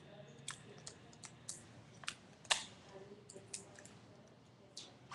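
Paper and sticky tape being handled and pressed down: irregular sharp crinkling clicks, about ten of them, the loudest about two and a half seconds in.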